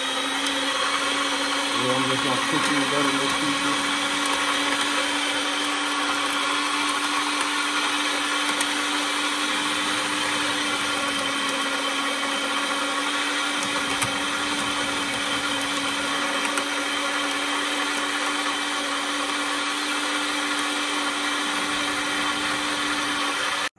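Electric meat grinder running steadily while grinding raw meat, its motor giving a constant even hum.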